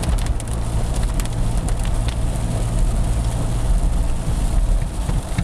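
Car cabin noise while driving in rain: a steady low rumble of engine and tyres, with scattered ticks of raindrops striking the car.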